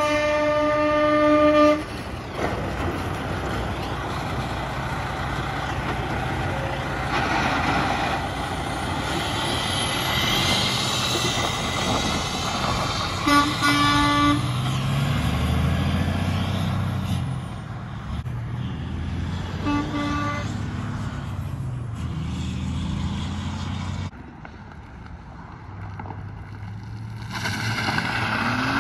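A semi truck's horn blows: one long blast at the start, then two short honks about 13 and 20 seconds in. Between them is the diesel engine and tyre noise of the bobtail tractor as it drives off over gravel.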